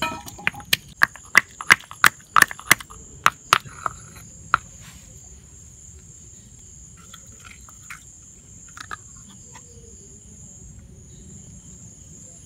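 Stone pestle pounding ginger, peppercorns and garlic in a stone mortar: sharp knocks about three a second for the first four seconds, one more a second later, then only faint taps. A steady high insect chirring runs underneath.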